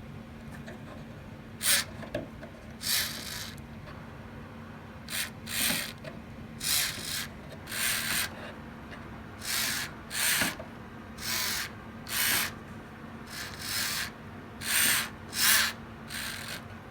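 Short rasping strokes of a small part being abraded by hand, about fifteen in all at roughly one a second, each lasting well under a second.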